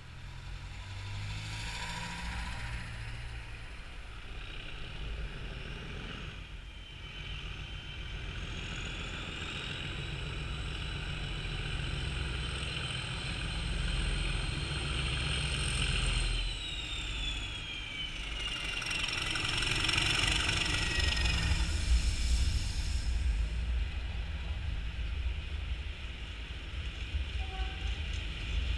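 Colas Rail Freight Class 37 diesel locomotive hauling a test train as it approaches and passes. The English Electric engine rumbles under a high turbocharger whistle, which climbs slowly and then falls away about halfway through. Engine and wheel noise grows loudest as the locomotive passes close, and the rumble of the coaches follows.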